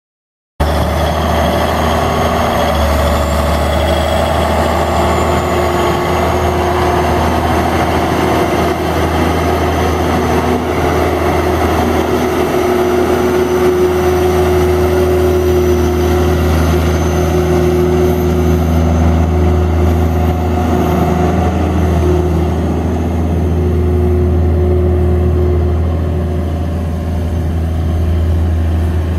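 1981 Steiger Panther III tractor's Cummins diesel engine running at a steady, even speed. It cuts in abruptly about half a second in.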